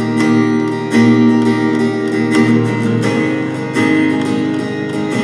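Instrumental music led by strummed guitar, with new chords struck about every second and a half between sung sections.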